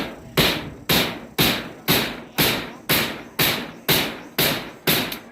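Steady hammering, about two even blows a second, each a sharp strike that dies away quickly.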